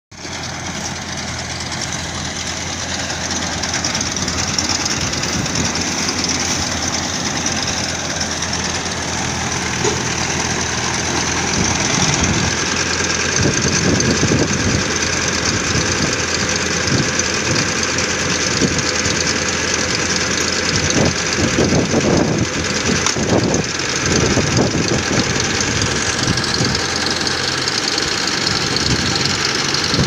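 Farm tractor's diesel engine running steadily under load while it drives a PTO-powered mini round baler through straw. Irregular clattering and rattling from the working baler gets louder through the middle stretch.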